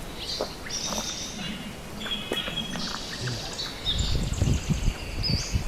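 Several wild birds chirping and calling in gum-tree bushland: short whistles and trills overlapping. From about four seconds in, a low irregular rumble joins them.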